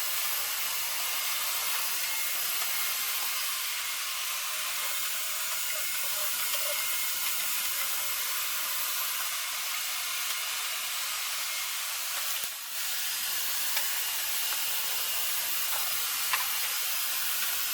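Several Roomba robot vacuums running at once: a steady whirring hiss of their vacuum motors and brushes, with a brief dip in level about two-thirds of the way through.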